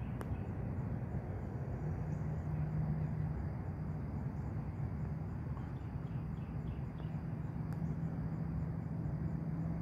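Steady outdoor ambience: an even rushing noise with a low steady hum beneath it and a faint high insect drone with soft regular ticks.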